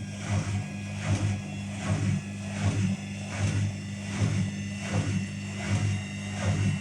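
Whirlpool FDLR70220S washing machine running a cycle: a steady motor hum under repeated swishing surges as the drum turns the load.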